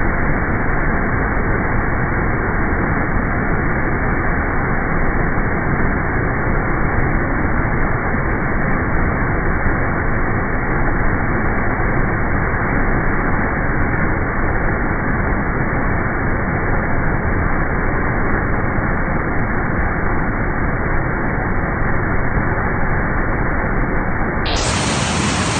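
Steady rushing water of a waterfall, heard dull and muffled. About 24 seconds in, it switches abruptly to a brighter, fuller rush.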